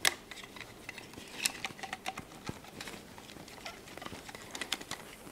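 Light clicks and taps from an aluminium T-track fence with switch magnets being picked up and turned over in the hands, starting with one sharp knock and followed by scattered small ticks.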